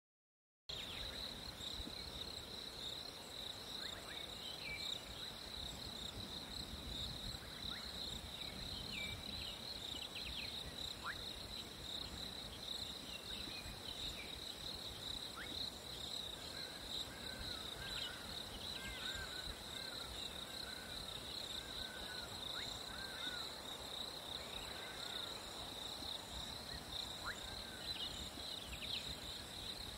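Crickets singing in a steady, unbroken high-pitched chorus, with scattered short chirps over it.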